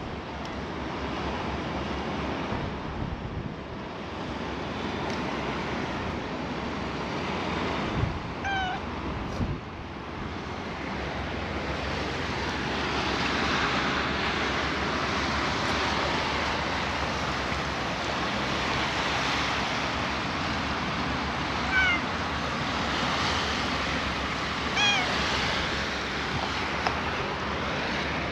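A cat meowing three times in short, separate meows, over a steady wash of lapping waves and wind.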